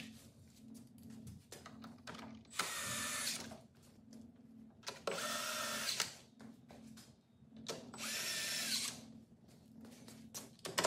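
A power drill driving screws in short runs of about a second each, its motor whining up and then dropping off. Three runs come a couple of seconds apart, with a fourth starting at the very end. These are the four screws that secure the trolling motor's new GPS head.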